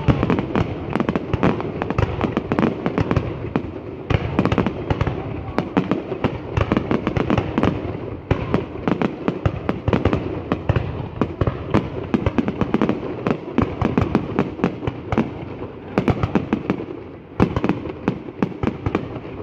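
Fireworks display going off: a dense, unbroken run of bangs and crackling, many reports a second, easing briefly twice.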